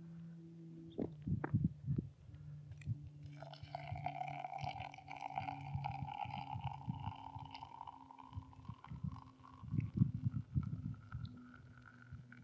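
Hot water poured in a thin stream from a stainless camp pot into an AeroPress onto ground coffee, trickling steadily for several seconds from about three seconds in. Low thuds and rumbles come and go around it, most clearly near the start and about ten seconds in.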